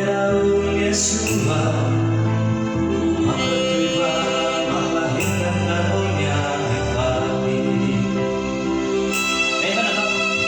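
Song played on an electronic keyboard, with held bass notes and chords and a singing voice.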